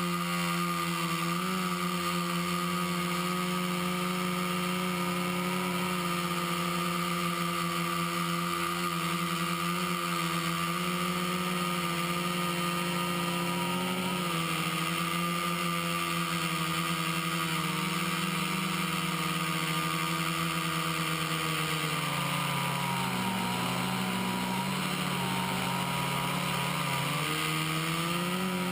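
Hoverthings HT-FPV quadcopter's four Exceed RC Rocket 2215 920Kv brushless motors spinning 10-inch propellers in flight, a steady multi-tone hum. Near the end the pitch dips and wavers for several seconds as the throttle changes.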